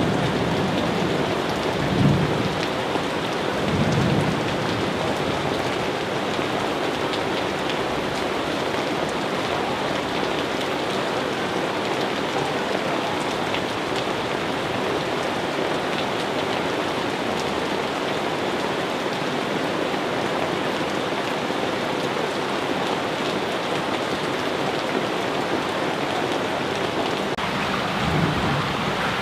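Steady rain falling, with short low rumbles of thunder about two and four seconds in and again near the end.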